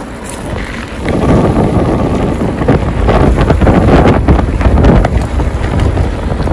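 Wind buffeting the microphone of a camera on a bicycle during a fast downhill ride, as a heavy rumbling roar that grows louder about a second in.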